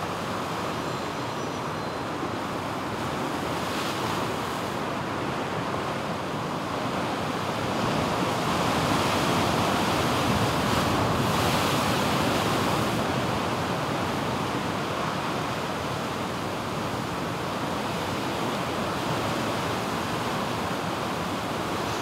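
Heavy ocean surf breaking on a rock shelf and whitewater pouring across and off the rocks: a steady rush that grows louder for several seconds in the middle as a large wave sweeps over the shelf.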